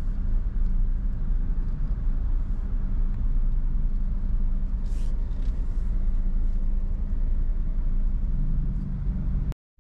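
Road vehicle engine running with a steady low rumble, with a short hiss about five seconds in; the sound cuts off abruptly just before the end.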